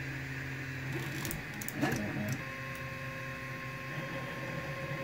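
Anet A8 3D printer starting a print once the hot end and heated bed have reached temperature. A steady fan hum, then about a second in a few clicks as its stepper motors begin moving, settling into a steady motor whine from about halfway.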